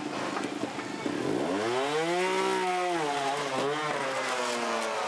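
Trial motorcycle engine revving: rising sharply about a second in, held high with a couple of quick blips of the throttle, then falling away gradually near the end.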